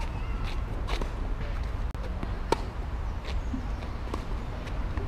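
Tennis rally on a hard court: sharp pops of racket strings striking a tennis ball, the loudest about halfway through and again at the very end, with fainter thuds of the ball bouncing or being hit at the far end in between, over a steady low rumble.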